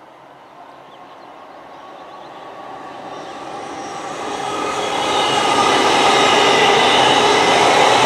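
TransPennine Express Class 802 bi-mode multiple unit approaching and passing close by at speed. Its running noise and rail rumble grow steadily louder over the first five seconds, then hold loud as the coaches go past.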